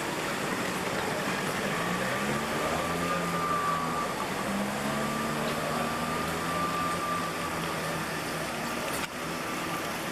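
Outdoor city ambience: a steady hum of traffic and people in a pedestrian square, with faint pitched sounds wavering through the middle seconds and a short click about nine seconds in.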